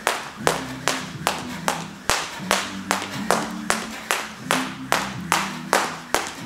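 Jump rope slapping the floor in a steady rhythm, about two and a half sharp slaps a second with fainter taps in between, during single-leg skipping.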